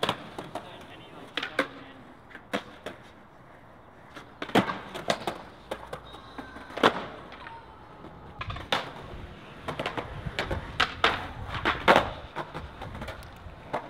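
Skateboards on concrete: a string of sharp pops and clacks as boards are popped, flipped and landed, with wheels rolling between them.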